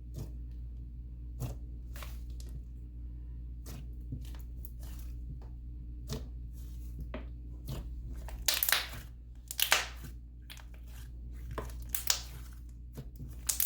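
Thick cloud cream slime being squished and stretched by hand: scattered sticky clicks and pops, with a few louder tearing rasps in the second half as it pulls apart.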